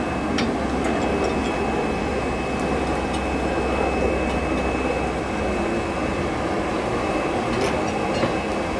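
A blacksmith's forge blows steadily as air is driven into the fire, with a few faint sharp clicks, one about half a second in and another near the end.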